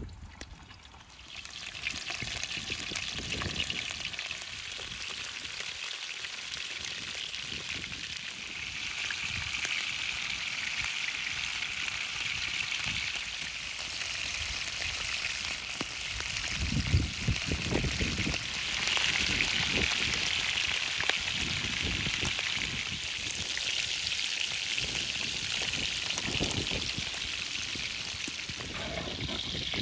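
Chunks of raw lamb sizzling as they fry in hot fat in a large wide pan over a wood fire. The sizzle swells up about a second and a half in, just after the meat goes in, and then keeps up steadily, with a few dull knocks from the pan now and then.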